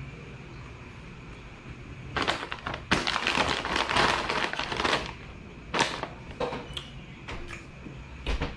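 A plastic snack-chip bag crinkling as it is handled and folded, a dense crackle lasting about three seconds, starting about two seconds in. A few shorter crackles and light knocks follow.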